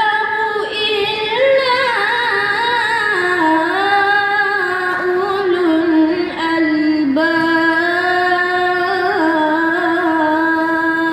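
A boy's voice reciting the Quran in a melodic chanted style, holding long ornamented notes that waver and glide in pitch.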